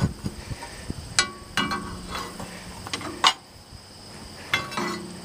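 Steel crowbar knocking and prying against the milling machine's cast-iron gearbox housing: a few sharp metallic clanks with brief ringing, the loudest about three seconds in.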